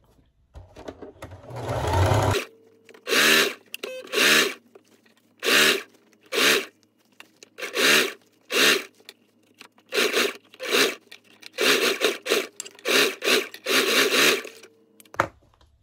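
Domestic sewing machine stitching a seam in a dozen or so short spurts, the motor speeding up and slowing down with each press of the foot pedal.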